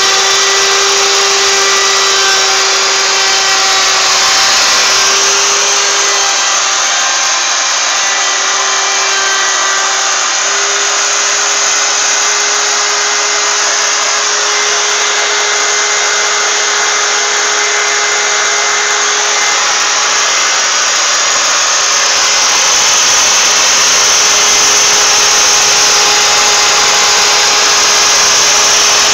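Wood router on a homemade router lathe running at speed with a steady high whine and a constant rush of cutting noise as it cuts a spiral groove into a turning wooden blank. The whine wavers and briefly falters about six to ten seconds in.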